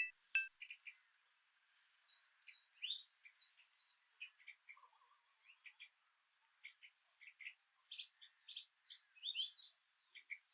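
Small birds chirping faintly: scattered short, high chirps, with a quicker run of them about nine seconds in.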